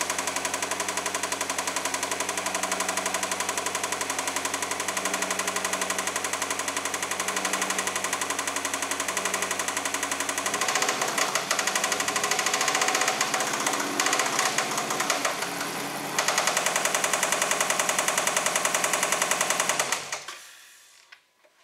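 Dodge Hemi V8 running on a cold start with a rapid, steady knock, louder about halfway through and again a few seconds later, until the sound dies away near the end. The mechanic takes the knock for a rod knock rather than a lifter tick.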